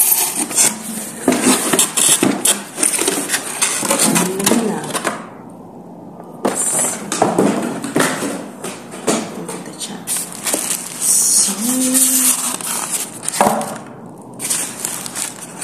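Clear plastic wrapping crinkling and polystyrene foam packing rubbing and creaking as a sandwich maker is worked out of its foam inserts. The sounds come irregularly, with a short pause about five seconds in and another near the end.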